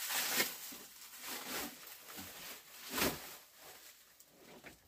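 Plastic shipping wrap rustling and crinkling in irregular handfuls as it is pulled off a golf stand bag, the loudest crinkle about three seconds in.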